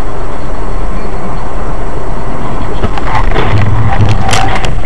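Loud, steady vehicle driving noise, with a burst of sharp knocks and clatter starting about three seconds in.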